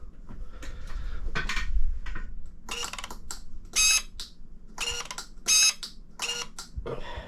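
Shimano 105 Di2 electronic derailleur shifting under the shifter's button presses: about six short, high-pitched electric motor whirs roughly a second apart, after a low handling rumble in the first couple of seconds.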